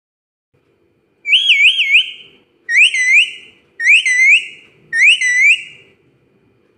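Rose-ringed parakeet giving four loud whistles. The first is a quick wavering warble and the other three are rising swoops, each about a second long.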